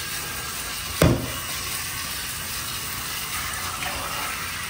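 Handheld shower head spraying water onto a cat's wet fur in a bathtub, a steady hiss as the shampoo is rinsed out. A single sharp knock about a second in.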